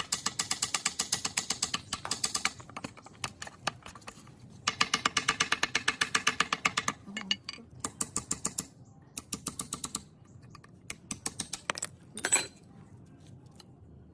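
Ratchet wrench clicking rapidly, about ten clicks a second, in several runs of one to two seconds with short pauses between, while working on a rusty gearbox; a short louder rasp near the end.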